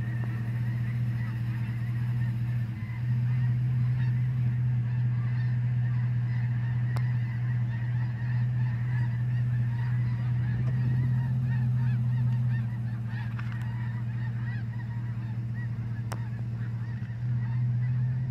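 A large flock of geese passing overhead in long skeins, a continuous overlapping chorus of honking calls. Underneath runs a steady low hum that is louder than the birds.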